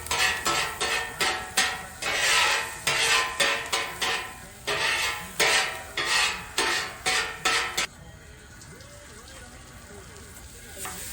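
A utensil scraping and stirring food in a frying pan, in quick repeated strokes. After about eight seconds the stirring stops and a quieter sizzle goes on.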